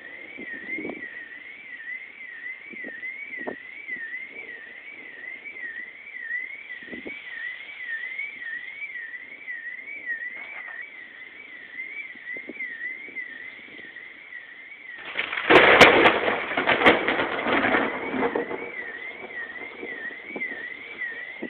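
A warbling alarm tone sounds steadily, rising and falling about twice a second. About fifteen seconds in, a loud clap of thunder breaks over it and rumbles on for about three seconds before fading.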